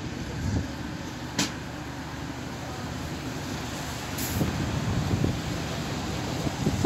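Small narrow-gauge railway locomotive standing and running steadily with a low rumble, with wind buffeting the microphone in gusts. A sharp metallic click comes about a second and a half in, and a short hiss about four seconds in.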